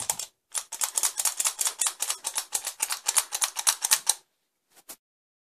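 Rapid, irregular clicking and tapping of hard plastic, several clicks a second, stopping about four seconds in.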